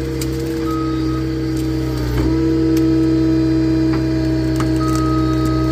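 Hydraulic log splitter running steadily under its engine while the ram presses into a pine stump; about two seconds in its hydraulic drone grows louder as it takes the load, with a few faint cracks of wood.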